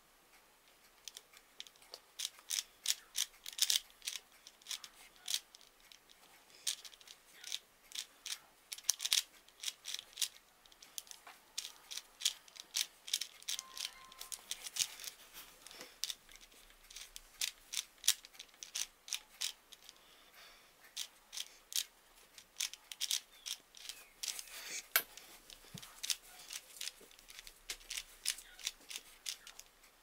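A 4x4 Rubik's cube being turned by hand, its plastic layers clicking and clacking in quick, irregular runs of turns.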